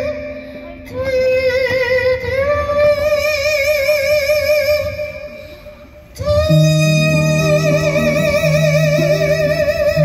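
A woman singing long held notes with wide vibrato over guitar accompaniment, amplified through a PA. A new sustained note starts about six seconds in, with low held accompaniment notes under it.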